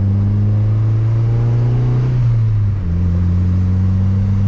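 Turbocharged Honda F20B four-cylinder engine in a 2002 Accord pulling under light throttle, its pitch rising gently, then dropping at an upshift about two and a half seconds in before it carries on at a steady pitch.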